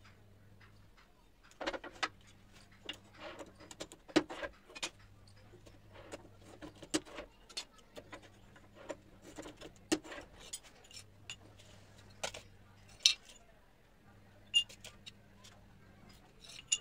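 Ceramic tiles and hand tools being handled on a hard floor: scattered clicks, taps and light clinks, with a few sharper knocks.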